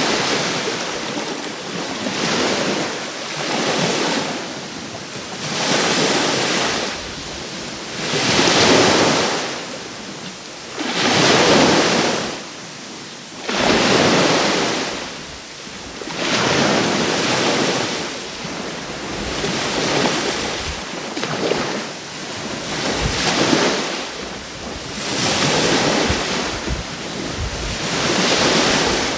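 Small sea waves breaking and washing up on the shore, each one swelling and falling away every two to three seconds, with some wind on the microphone.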